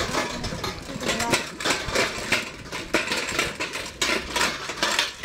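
Floating river-current paddle-wheel generator running: a continuous irregular mechanical clatter of knocks and rattles from the turning wheel and its chain-and-gear drive.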